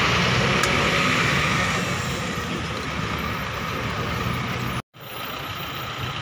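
Roadside traffic noise with a heavy vehicle's engine running, louder for the first two seconds. The sound cuts out completely for a moment about five seconds in.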